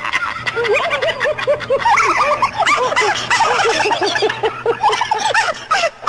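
Canned laughter sound effect: several voices laughing in quick, repeated 'ha' bursts.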